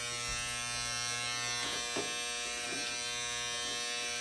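Corded electric hair clippers running with a steady, even buzz while cutting short hair.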